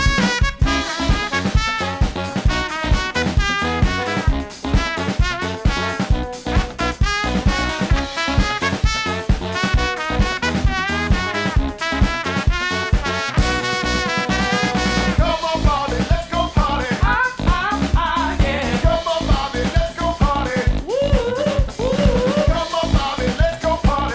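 Brass band playing an upbeat pop cover on trumpet, trombone and bass saxophone over a drum kit keeping a steady, driving beat. About fifteen seconds in, a wavering, sliding lead line comes in over the band.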